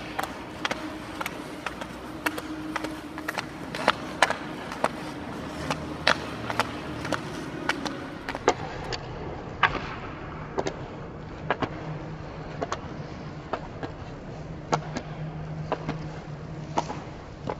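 Hockey stick blade tapping and cupping a puck on the ice while stickhandling: sharp, irregular clacks about one or two a second. A steady low hum runs underneath.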